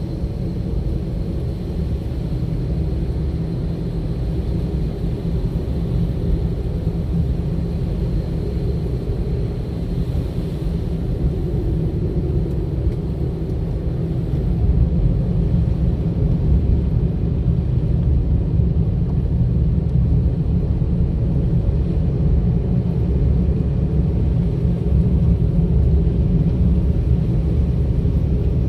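A car being driven along a road, giving a steady low rumble of engine and tyres. It grows slightly louder about halfway through.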